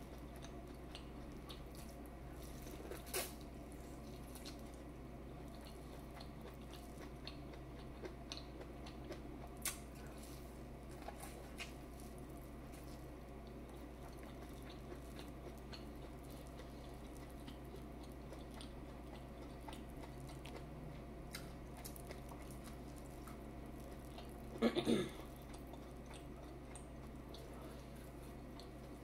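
Quiet eating sounds of a person working through a seafood boil: scattered soft chews and mouth clicks over a steady low room hum, with one louder brief noise about twenty-five seconds in.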